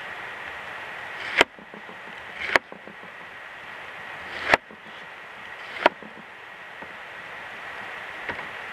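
A kitchen knife cutting through an onion on a plastic cutting board: four separate cuts, several heard as a short crunch that ends in a sharp knock of the blade on the board, plus a faint fifth knock near the end. A steady hiss runs underneath.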